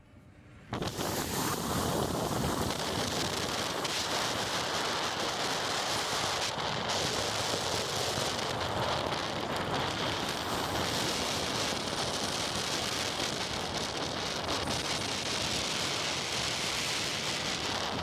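Steady noise of falling rain, starting abruptly under a second in.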